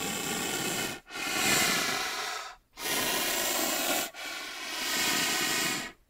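Rhinoceros breathing: four long, hissing breaths in a row, each about a second and a half, with short gaps between.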